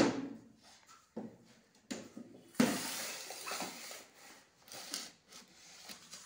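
Green plastic potty knocked against a tiled floor, starting with a sharp clack, then a few lighter knocks. About two and a half seconds in it becomes a scraping rush as the potty is pushed and dragged across the tiles.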